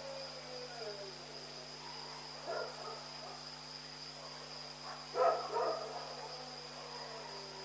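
Dog barking at night: a couple of softer barks about two and a half seconds in, then a louder pair of barks about five seconds in, the second followed by a long falling tone.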